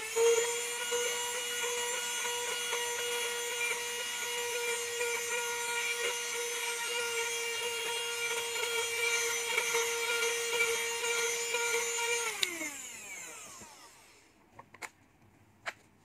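Portable cordless mini handheld vacuum cleaner running with a steady high-pitched whine as it is moved over carpet. About twelve seconds in it is switched off and the whine falls in pitch as the motor spins down, followed by two faint clicks.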